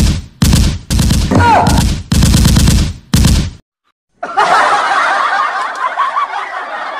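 Recorded machine-gun fire played loudly through a loudspeaker as a fake-shooting prank, in several rapid bursts with short gaps, the same stretch repeating as a loop; it cuts off about three and a half seconds in. After a brief silence, laughter follows.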